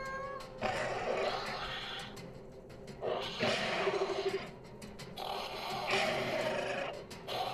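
Dinosaur roars and growls, three in a row, over background music, as one dinosaur attacks another.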